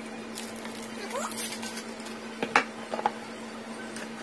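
Plastic wrapping crinkling and rustling as items are handled in a box, with a few sharp clicks about two and a half seconds in.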